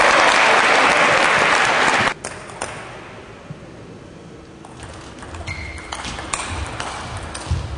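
Audience applauding in a sports hall for about two seconds, cutting off suddenly. Then a table tennis rally: celluloid ball clicking off the bats and bouncing on the table.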